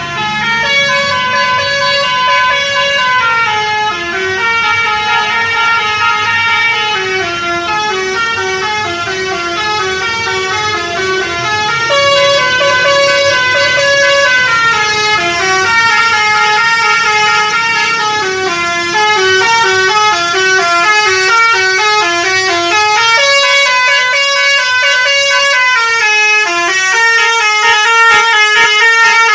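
Basuri telolet musical horn on a bus playing a continuous melody, its tones stepping quickly from note to note with a few notes held longer.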